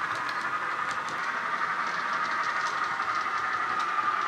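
Austrains X-46 model locomotive's DCC sound decoder playing a diesel engine sound through its small onboard speaker as the train runs, gradually getting louder. Scattered light clicks come from the model wheels on the track.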